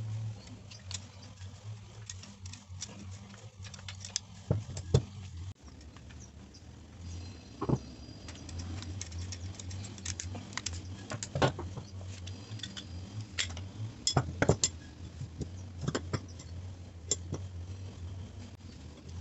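Air rifle parts and hand tools clicking and clinking as the gun is taken apart: a screwdriver and pliers work on the steel action, and small metal parts are tapped and set down at irregular moments over a steady low hum.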